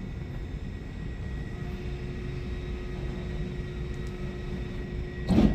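Vending machine's dispensing motor running with a steady hum as the spiral turns, then a loud thump near the end as the booklet drops into the pickup bin.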